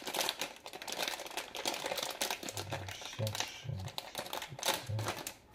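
Crinkling and rustling with rapid small clicks as hands handle small carburetor parts during reassembly of an Edelbrock 1406 accelerator pump linkage.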